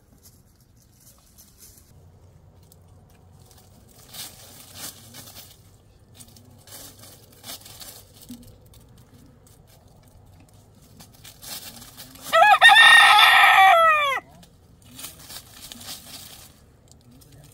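A rooster crows once, loud, about twelve seconds in, for about two seconds, the call dropping in pitch at the end. Faint scattered rustles come before and after it.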